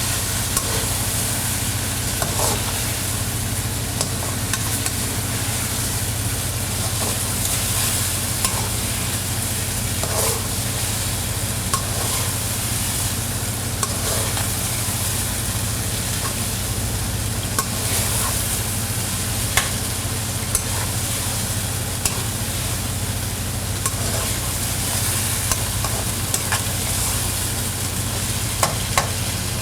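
Chicken karahi frying and sizzling in the pan while it is stirred, with a spatula clicking and scraping against the pan now and then. A steady low hum runs underneath.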